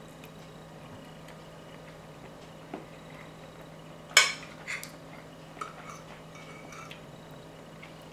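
A metal fork clinking and scraping against a ceramic bowl: one sharp, ringing clink about four seconds in, then a few lighter taps and scrapes.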